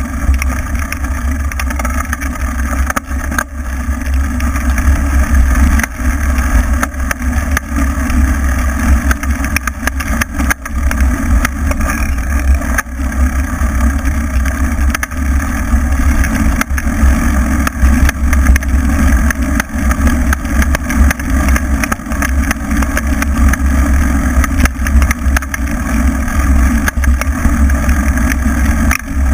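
Wind rumbling over a bike-mounted camera's microphone, with constant rattling and knocks from the mount as the knobby-tyred bike rides fast over a bumpy dirt trail.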